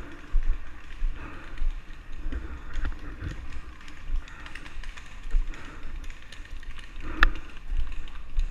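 Irregular footsteps and rustling movement close to the microphone, with low thumps and a few faint ticks. There is one sharp crack about seven seconds in.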